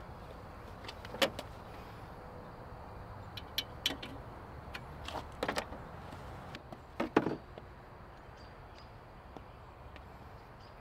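A handful of sharp clicks and knocks at irregular intervals, from a screwdriver and hand tools being handled against the car's plastic grille and trim, over a steady low background hum.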